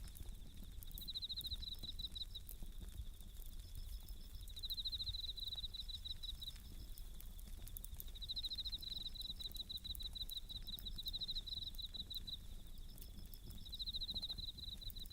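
Japanese bell crickets (suzumushi) singing: a steady high chirring that swells every few seconds into bright pulsed trills, with a second, higher chirp coming and going. Faint, sparse crackles of a wood fire sound underneath.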